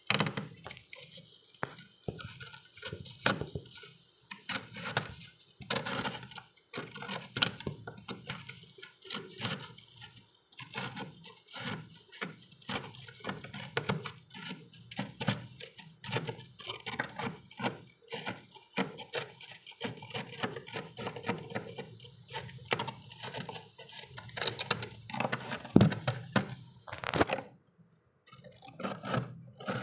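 Knife scraping thick frost off the inside walls of a freezer: a run of irregular scrapes and crunches as the ice is shaved and broken loose.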